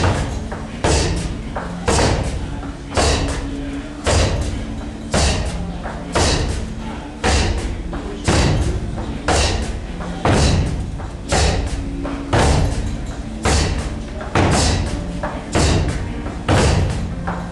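Heavy thuds at a steady pace of about one a second, some in quick pairs, each trailing off in a short echo: repeated impacts during martial-arts training.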